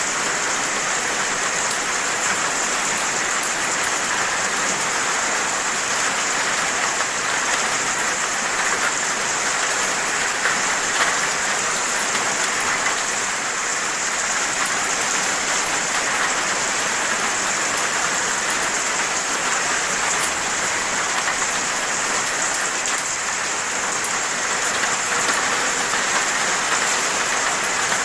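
Steady, unbroken rain, an even hiss with a patter of individual drops landing on a surface.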